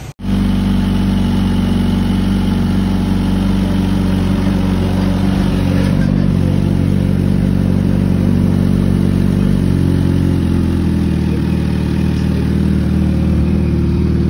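Sport motorcycle's four-cylinder engine idling steadily, its note changing slightly about ten seconds in.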